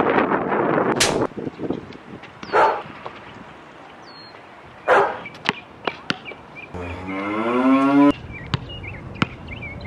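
Basketball play: wind buffets the microphone for about the first second, then a few thuds and knocks of a basketball bouncing and hitting the backboard. Near the end comes one drawn-out vocal call of about a second that rises in pitch.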